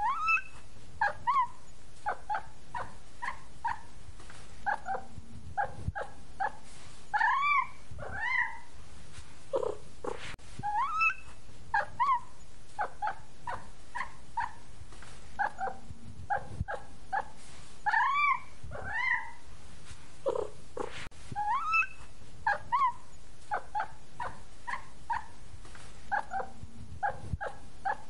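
Kittens mewing over and over in short, high calls that rise and fall, in quick runs of several calls. The same run of calls repeats about every ten seconds.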